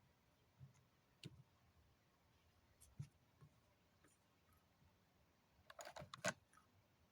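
Faint, scattered clicks and taps, with a quick cluster of them about six seconds in.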